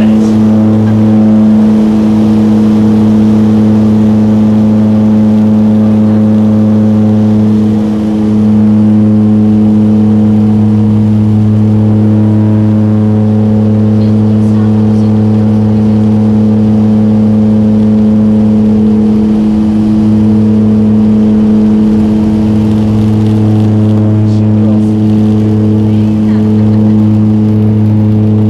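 Turboprop airliner's engines and propellers at takeoff power during the takeoff roll, heard from inside the cabin: a loud, steady, low propeller drone that holds one pitch throughout.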